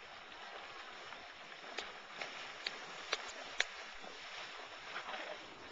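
Horse wading through shallow water, a soft splashing, with a run of five sharp clicks about half a second apart in the middle.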